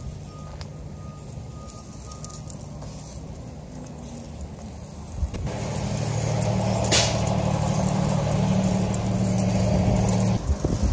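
A motor vehicle's engine running steadily, a low hum that gets much louder about halfway through and cuts off shortly before the end.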